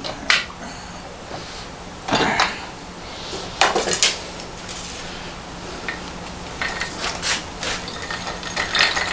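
Scattered metal clinks and rattles from handling a spool of braided fishing line on a bolt in a bench vise. About two thirds in, a quicker run of clicks starts as a Zebco 33 spincast reel begins winding line onto its spool.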